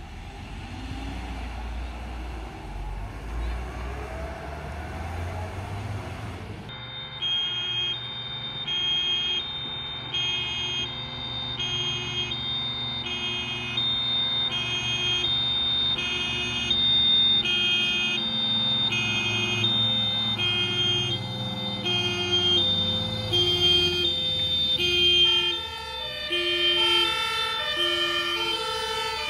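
A vehicle's engine running as it drives by. About seven seconds in, a TLF 8/18 fire tanker's two-tone siren starts, alternating a high and a low note, a pair about every one and a half seconds, with its engine running underneath. Near the end a second two-tone siren with a quicker alternation comes in.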